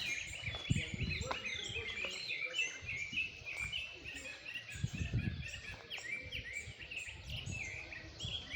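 Several birds singing together in a morning chorus: many short, overlapping chirps and whistled notes with no break, with a low rumble now and then underneath.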